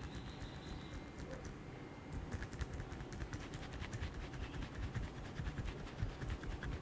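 Quick, repeated tapping strokes of a hands-on massage, several a second, growing louder and busier about two seconds in.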